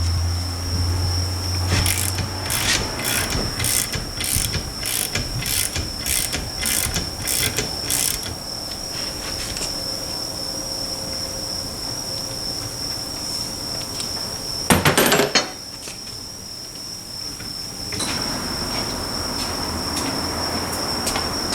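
Hand-tool work on a dismantled rear differential: a run of sharp metallic taps, about two a second for several seconds, then a single loud knock. A steady high-pitched insect chirring runs underneath.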